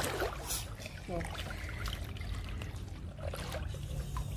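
Swimming-pool water sloshing and splashing as people move about in it, with small irregular splashes.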